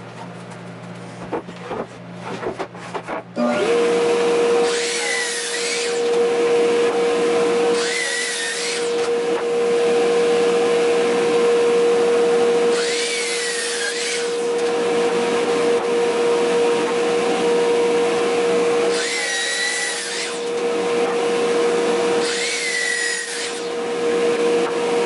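A woodworking power tool switches on after a few seconds of handling clicks and runs steadily with a constant motor whine. Five times it gets louder and harsher for about a second, as wood is fed through and cut.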